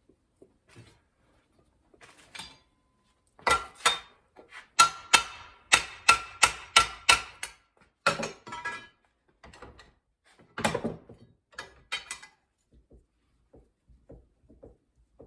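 Hammer blows on sheet steel with a metallic ring. A quick run of strikes comes a few seconds in, about three a second, followed by a few scattered heavier blows and then light taps near the end.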